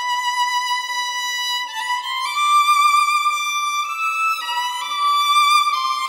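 Background music: a violin playing a slow melody of long held notes with vibrato.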